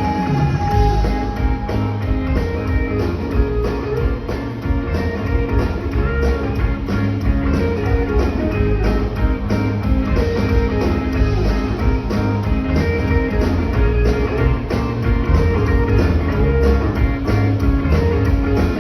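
Live jam-band music: an instrumental passage with guitar leading over bass and a steady drum beat, with no singing.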